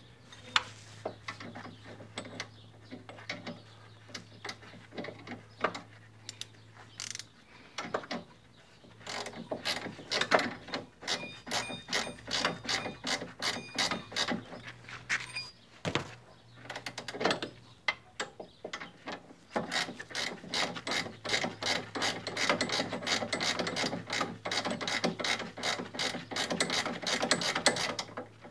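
Ratchet wrench clicking as the nut of a new anti-roll bar drop link is wound on and tightened: a few scattered clicks at first, then bursts of rapid clicking that settle into a steady fast run of about five or six clicks a second for the last several seconds.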